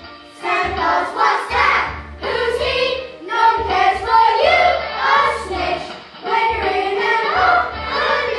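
A chorus of children singing together over an instrumental backing.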